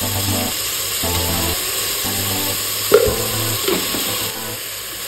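Tomatoes, onions and green chillies sizzling in hot oil in a pressure cooker, under background music. A single sharp knock about three seconds in.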